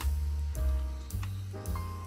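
Background music: a light instrumental with a bass line, held melody notes and a drum beat about every half second.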